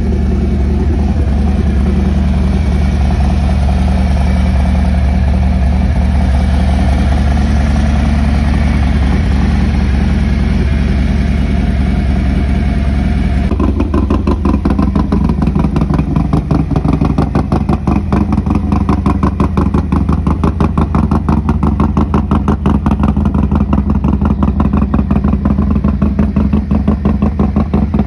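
Harley-Davidson Milwaukee-Eight V-twin in stage 2 tune (821 cam, ported intake, Bassani 2-into-1 exhaust) idling. For the first half it idles smoothly. About halfway through the sound changes abruptly to a choppier idle with an even, pulsing beat.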